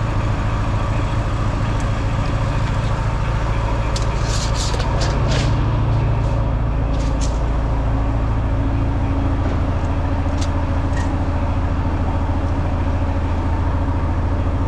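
Engine idling steadily, with a few short sharp clicks or knocks over it, clustered around four to five and a half seconds in and again near seven and ten seconds.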